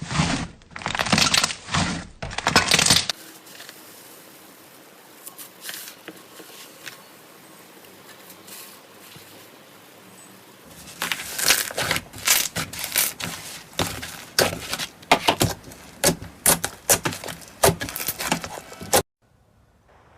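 Slime being squeezed and worked by hand, making rapid sharp clicks and crackling pops. There is a quieter stretch with only faint crackles in the middle, and the sound stops abruptly about a second before the end.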